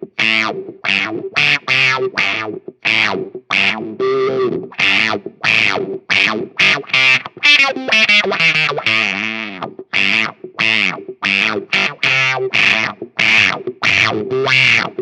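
Electric guitar played through a Dr. No Roadrunner octave fuzz wah pedal, with heavy fuzz distortion. It plays short, choppy chord stabs about two or three times a second. Longer held notes, whose tone sweeps, come about four seconds in and again around eight to nine seconds in.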